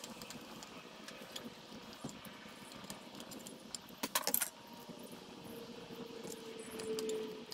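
Small metal parts and a screwdriver clicking and clinking against an IDF carburetor body during hand reassembly, with a short burst of louder clinks about four seconds in.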